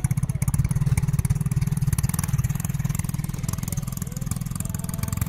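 Small quad ATV's engine running steadily just after starting, with a rapid, even putter.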